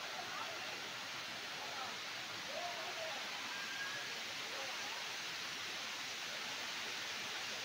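Waterfall pouring steadily onto rocks and a pool, an even rushing noise, with faint voices of a crowd mixed in.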